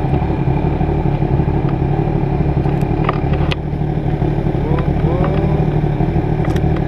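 A small engine running steadily, with a few sharp clicks about halfway through.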